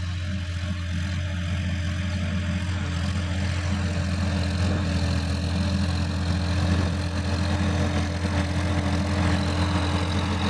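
Sonalika DI-50 RX tractor's diesel engine running steadily under load as the tractor ploughs dry ground: an even, low drone.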